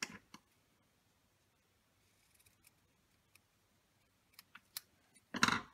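Scissors cutting a short piece of satin reversible ribbon: a few faint clicks, then one louder snip near the end.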